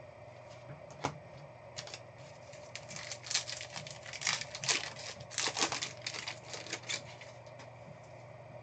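A single click about a second in, then a trading card pack's wrapper crinkling and tearing as it is ripped open, in a dense run of crackles for about four seconds.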